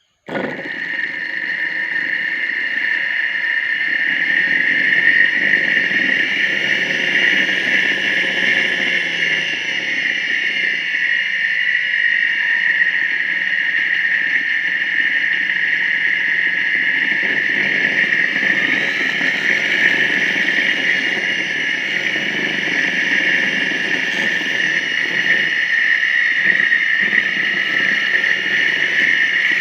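Car's electric radiator cooling fan running steadily, a constant whir with a high whine that cuts in suddenly.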